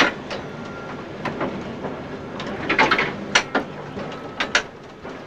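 Vintage electric tram running along street track, heard from the driver's cab: a steady rumble with repeated sharp knocks and rattles, the strongest cluster about three seconds in.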